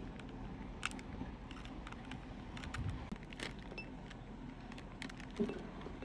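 Crinkling of a foil snack packet and small chocolate candy balls clicking against a paper plate as they are poured and handled, a few sharp ticks over a low background rumble.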